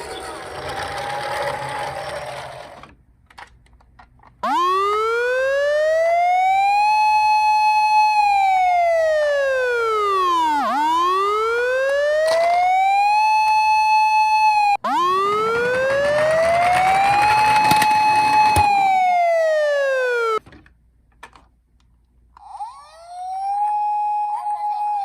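Toy emergency vehicle's electronic wail siren, its pitch rising and falling in slow sweeps. It cuts off abruptly and restarts twice, after a few seconds of noise at the start.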